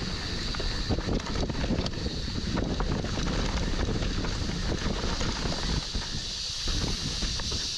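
Mountain bike descending a rough dirt trail: wind buffeting the camera microphone over the tyre noise, with frequent short rattles and knocks from the bike over bumps.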